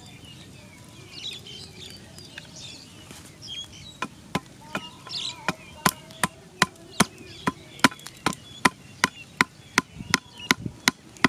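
A machete chopping into wood, sharp strikes at a steady pace of about two or three a second. The chopping starts a few seconds in and runs on, with about twenty strikes.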